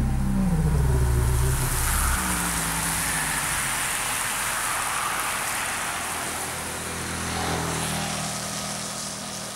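A motor vehicle going by, its engine sound dropping in pitch and fading about two seconds in. A steady hiss, like tyres on a wet road, is left behind and slowly dies away.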